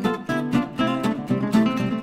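Background music: acoustic guitar played quickly, with strummed chords and rapid plucked notes.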